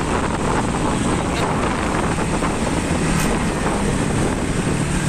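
Steady road noise from a moving column of motorcycles and cars: engines running and tyres on the road, with wind rushing over the microphone.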